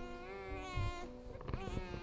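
A baby crying: one long wavering wail for about the first second, then a shorter rising-and-falling cry near the end, over faint sustained notes of background music.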